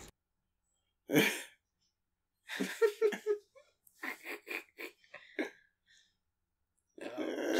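Men laughing quietly between stretches of silence: a sharp snort-like exhale about a second in, breathy chuckles, then a run of quick rhythmic laughing pulses from about four to five and a half seconds.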